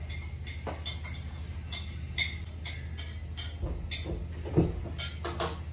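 Steady low hum under a run of small sharp clicks and clinks, with a louder thump about four and a half seconds in.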